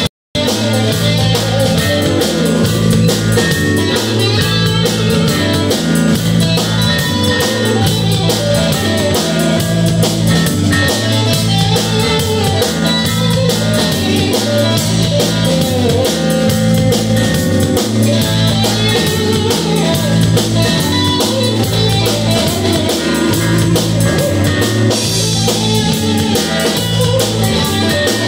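Live instrumental jam by an electric band: electric guitar, electric bass, Nord Electro keyboard and drum kit, over a steady repeating bass line and drum groove. The music cuts in abruptly mid-tune just after the start.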